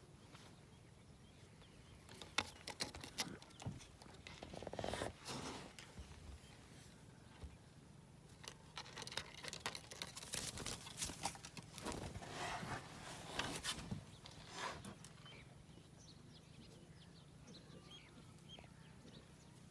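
A parrot making short, rough squawks and scratchy calls in two spells, about two to six seconds in and again from about eight to fifteen seconds in, with quiet stretches between.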